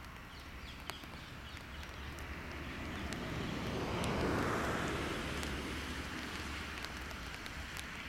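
A car passing on a road: a rush of tyre and engine noise that swells to a peak around the middle and fades away.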